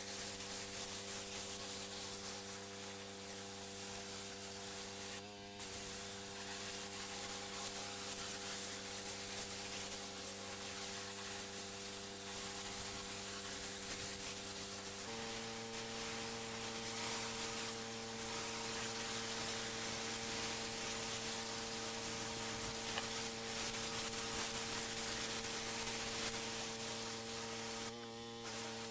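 A pressure washer running steadily, its engine and pump humming under a constant hiss of high-pressure water spray. The hum shifts slightly in pitch about halfway through, and the sound drops out briefly a few seconds in and again near the end.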